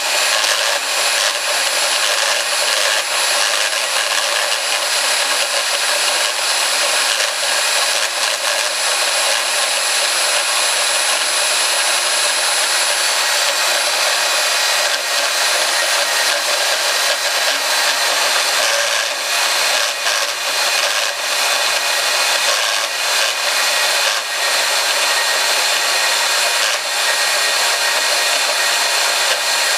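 RB-100 band saw running steadily, its blade cutting through a 115 mm round pipe. A thin high whine stops about halfway through.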